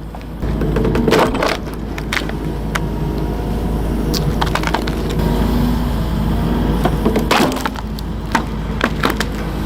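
Wood splitting under an excavator's hydraulic splitter attachment: repeated sharp cracks and splintering as logs burst apart, the loudest about a second in and again past the seven-second mark, over the steady hum of the excavator's engine.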